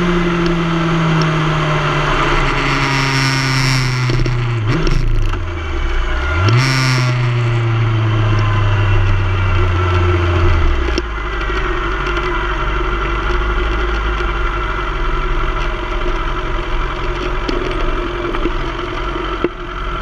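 Yamaha sport bike's inline-four engine slowing on the overrun, with two quick downshifts and throttle blips about five and six and a half seconds in. From about eleven seconds in it settles to a steady idle as the bike rolls to a stop. Wind rushes past in short gusts while the bike is still moving.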